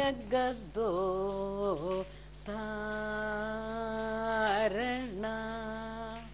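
A woman singing unaccompanied in Carnatic style: short phrases, then long held notes, with swooping ornamental pitch bends between them.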